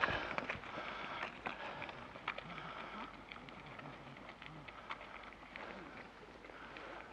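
A jogger's footsteps on asphalt, heard as faint irregular knocks, with faint distant voices of other runners.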